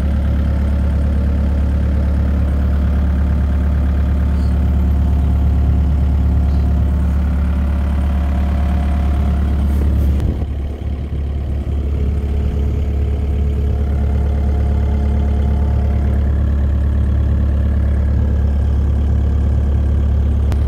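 2006 Bobcat 331G mini excavator's engine running steadily, heard from the operator's seat. About halfway through the sound briefly drops, then steadies again.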